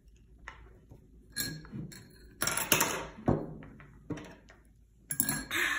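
Sipping and slurping through a straw from a plastic cup, with a few short knocks and clinks of the cup and utensils on a wooden table.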